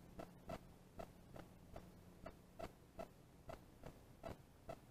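Faint, regular ticking, about two to three ticks a second, over a low steady hum.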